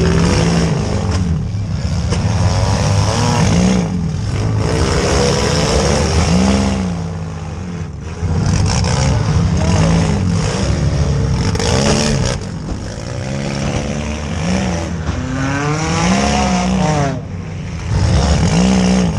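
Compact demolition derby car's engine revving up and down over and over, its pitch rising and falling every second or two, with other derby cars' engines running behind it.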